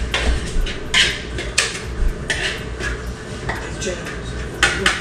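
Irregular sharp knocks and clicks of kitchen utensils, roughly a second apart: a knife cutting cooked chicken on a plastic cutting board and a spoon stirring in a plastic mixing bowl.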